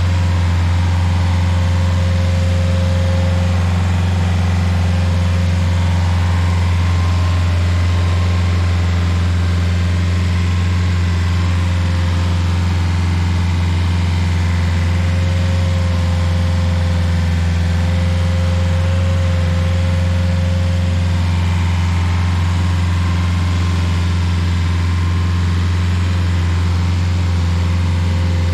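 Rayco RG50 stump grinder running steadily at working speed, its engine and spinning cutter wheel making an even, unbroken drone as the wheel is worked through the ground-out pine stump.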